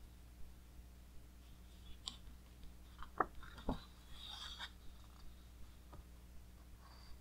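Handling of a large hardback book's heavy glossy pages: a few small clicks and taps between about two and four seconds in, followed by a soft paper rustle, over a steady low hum.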